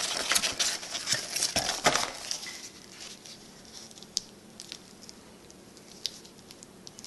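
Packaging rustling and crinkling as the magnifier is taken out of its box and its white foam wrap is handled, busiest in the first two seconds or so. After that it goes quieter, with a few light ticks.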